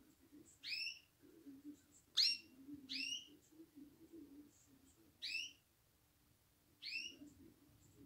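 Small pet cage birds, a canary and zebra finches, giving short sharp call notes five times at irregular intervals, each a quick downward-curving note.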